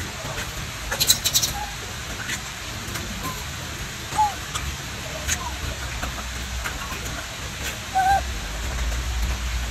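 A rhesus macaque eats watermelon: crisp wet crunches and clicks of biting and chewing, thickest about a second in, over a steady hiss. A few short chirping calls come through about two, four and eight seconds in.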